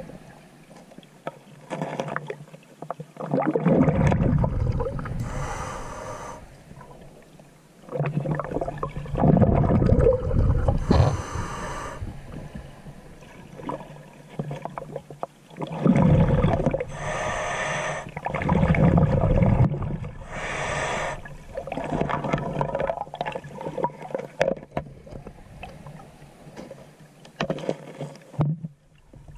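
A snorkeler's heavy breathing through a snorkel, heard underwater: loud, muffled breaths every few seconds, with hissy intakes in between and water sloshing around the submerged microphone.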